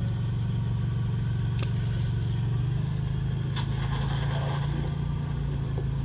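Third-generation Toyota 4Runner's engine running steadily at low revs as the truck crawls up a rock ledge, its pitch rising slightly a little before halfway, with a faint sharp click a little past halfway.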